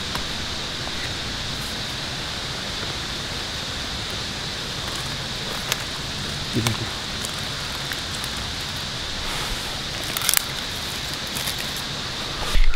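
A steady outdoor hiss with a few soft knocks and rustles from split sticks and a bundle of dry twigs being set down on the forest floor to lay a campfire.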